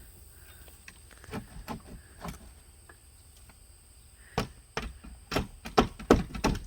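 Irregular knocks and clunks of hand demolition work on wooden house siding: a few faint ones early, then louder and more frequent from about four seconds in.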